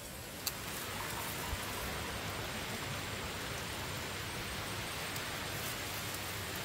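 Steady outdoor hiss of wind through tall grass and across the microphone, with a single click about half a second in.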